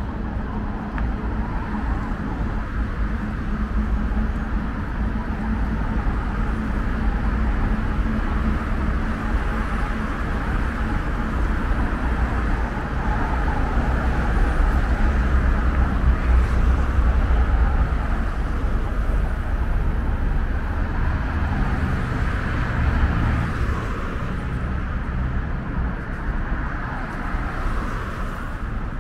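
Steady city road traffic noise: a continuous rumble of passing cars, with a steady engine-like hum early on that fades away.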